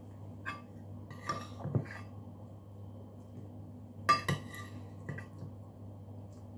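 A metal spoon clinking against a bowl and dishes while eating: a light clink about half a second in, a few more around one and a half seconds, and the sharpest pair at about four seconds. A steady low hum runs underneath.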